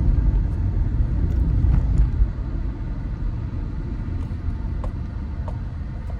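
Steady low rumble of a car on the move, road and engine noise with no clear changes.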